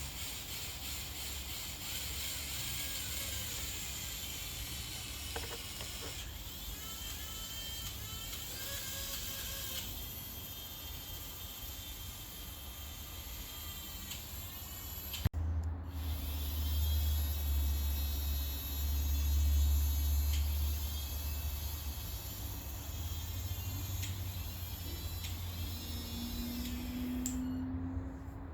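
Small electric motors and gearing of a radio-controlled model forklift whining, the pitch repeatedly rising and falling as the motors speed up and slow down, over a low hum. A sharp click comes about halfway through.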